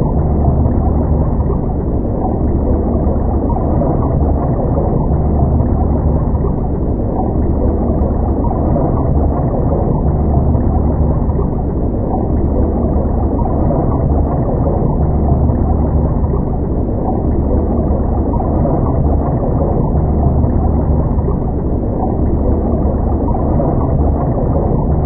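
Underwater ambience: a steady, muffled low rumble and gurgle of water heard from below the surface, with no high sounds at all. The deep rumble swells and eases every couple of seconds.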